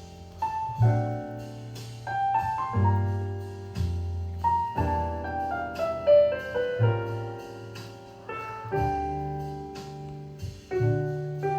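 Jazz piano music playing: a melody over chords, with low bass notes struck every second or so.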